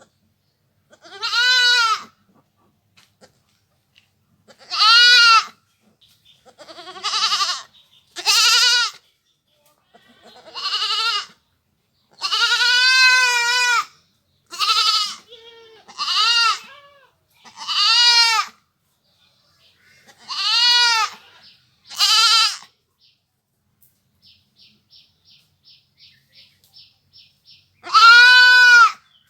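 A goat bleating again and again, about a dozen separate calls, each rising and falling in pitch with a wavering quality, one of them drawn out to about two seconds. In a longer pause near the end there is a run of faint ticks, about three a second.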